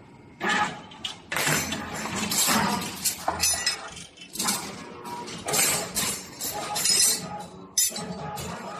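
Irregular mechanical clatter and metallic clinks from a CNC wire bending machine at work and bent metal wire parts being handled and set down.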